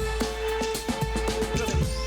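Background music with a steady drum beat and held synth tones.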